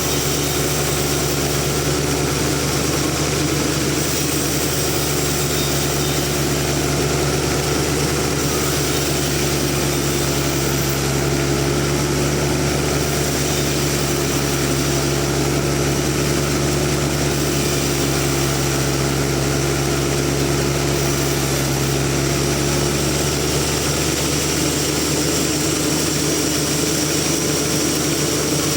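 Sawmill machine running steadily, with an even motor hum that holds without a break.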